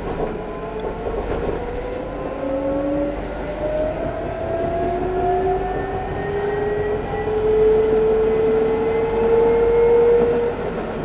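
Cabin sound of an Alstom Citadis 302 tram under way: a low rolling rumble with the electric traction drive's whine rising slowly in pitch as the tram gathers speed, a stronger rising whine starting about four seconds in and fading out near the end.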